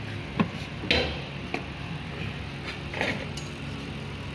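Several short, unevenly spaced clicks and knocks from the stainless-steel lid and handle of a single-plate electric waffle baker being handled, over a steady low hum.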